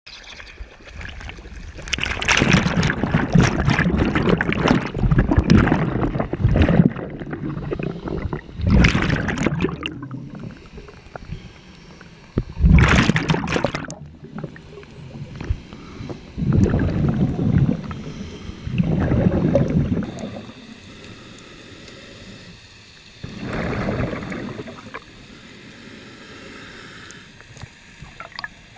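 Scuba regulator breathing heard underwater: bursts of bubbling and hissing come every few seconds, the longest near the start, with quieter water noise between them.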